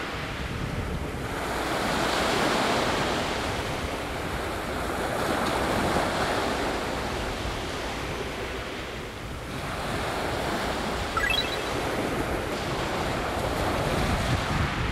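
Small waves breaking and washing up a pebble beach, the surf swelling and ebbing every four seconds or so.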